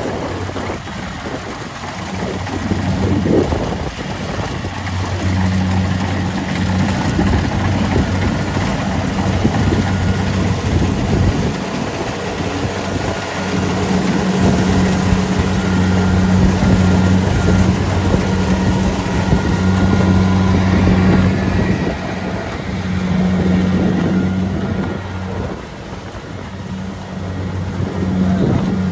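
Kubota DC-70 Plus combine harvester running as it cuts rice: the steady drone of its diesel engine and threshing machinery, with a low engine hum that swells and fades several times.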